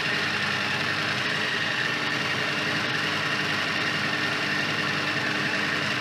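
Electric blender motor running steadily with an even whine, working shortcrust pastry from butter-and-flour crumbs into dough as cold milk is added.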